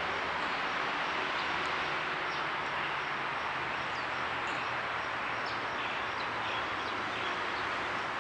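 Steady outdoor background noise, an even hiss with no rhythm, with a few faint, short bird chirps scattered through it.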